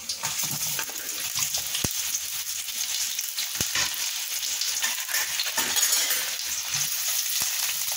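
Sliced red onions frying in a little hot oil in a stainless steel kadai: a steady crackling sizzle, with a few sharp clicks along the way.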